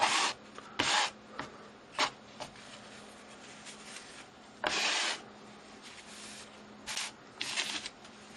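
Wet acrylic paint being scraped and spread across a stretched canvas in about six short, quick strokes, the longest about five seconds in.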